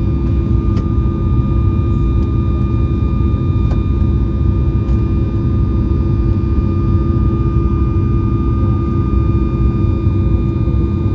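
Boeing 737 MAX 8's CFM LEAP-1B turbofan engines running at takeoff thrust: a steady, loud rumble with several steady whining tones on top, holding even throughout.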